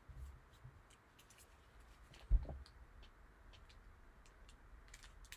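Trading cards being handled on a table: faint scattered clicks and taps, with one soft thump a little over two seconds in.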